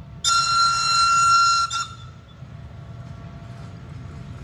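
The 1943 BCFe 4/4 electric railcar sounds its warning whistle: one high steady note lasting about a second and a half, ending with a short blip. Under it and after it the low rumble of the approaching train grows slowly louder.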